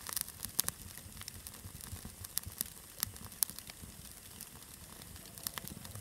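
Wood fire crackling: irregular sharp pops and snaps, some in quick clusters, over a soft low rumble of burning.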